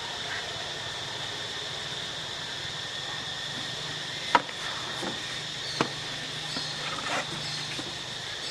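Steady high-pitched drone of insects, with two sharp clicks about four and a half and six seconds in and a few faint short chirps.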